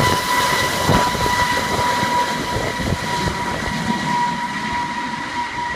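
Eurocopter AS365 Dauphin helicopter taking off and flying away: a steady high whine over the rushing noise of its rotors and turbines, slowly getting quieter.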